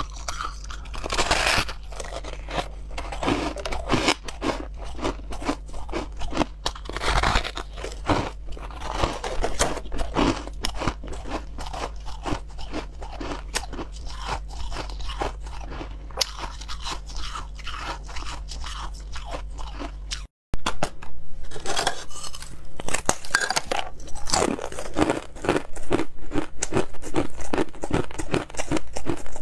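Close-up crunching and chewing of ice: first soft, snow-like frost chunks bitten and chewed. After a short break about two-thirds in, thin flat ice slabs are bitten and crunched, louder and denser.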